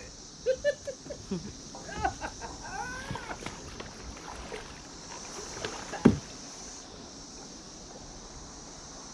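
Kayak being paddled in to shore: paddle knocks and water sounds against the hull, with one loud hollow knock about six seconds in. A steady high buzz of insects runs underneath.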